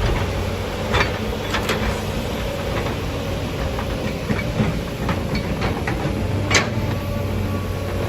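Heavy machinery running steadily, with a few sharp knocks or clanks.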